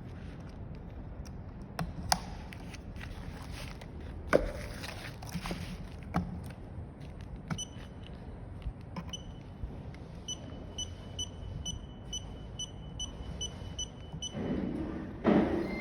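Clicks and handling noise, then a rapid run of short, high electronic beeps, about three a second, lasting several seconds, followed by more handling noise near the end.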